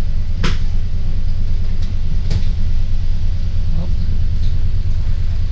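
City bus engine idling, heard from inside the cabin as a steady low rumble, with two sharp clicks about half a second and two seconds in.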